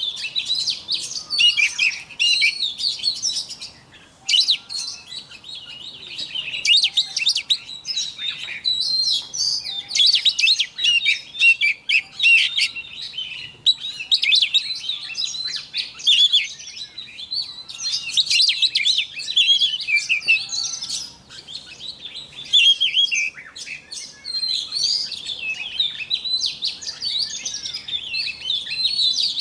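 Oriental magpie-robin singing a varied song of rapid whistles and chirps in long phrases, with brief pauses about four seconds in and again past the twenty-second mark.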